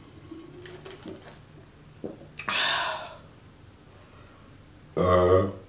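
A person's breathy exhale about two and a half seconds in, then a short, low-pitched voiced sound near the end.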